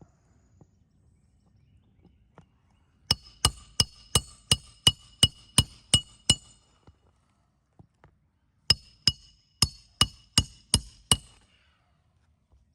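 Roofing hatchet driving roofing nails to fasten a replacement shingle: two runs of quick hammer blows, about ten and then seven, roughly three a second, each with a ringing metallic tone.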